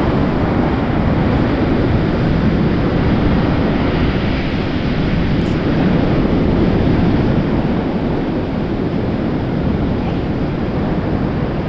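Surf breaking on a sandy shore, a steady rush of waves mixed with wind buffeting the microphone.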